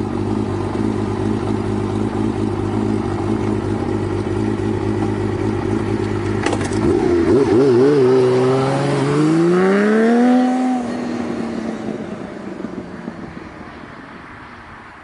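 Honda CBX 1000's air-cooled inline-six engine idling steadily, then given a few wavering throttle blips. About nine seconds in, its pitch rises as it revs up, then the sound fades away over the last few seconds.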